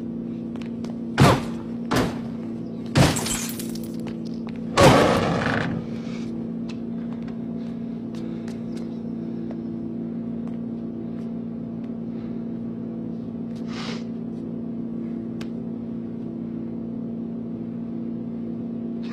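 Four hard kicks against the bodywork of a Ferrari sports car, landing roughly a second apart in the first five seconds, each a loud crunching thump; the fourth is the loudest and longest. After the kicks a steady low hum remains.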